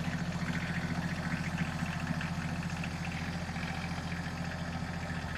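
Iseki TLE3400 compact tractor's diesel engine running steadily at an even pace as the tractor drives.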